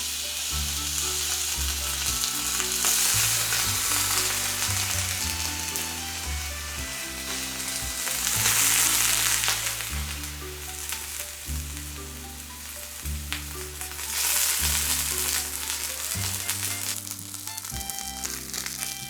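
Food sizzling in a hot pan, an even frying hiss that swells louder three times, with background music playing over it.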